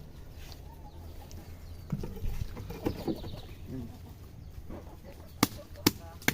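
Birds calling, then two sharp knocks about half a second apart near the end.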